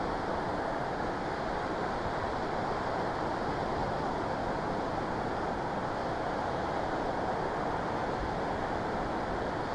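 Steady sea surf breaking on a sandy beach, heard as an even rush mixed with wind, with no single wave standing out.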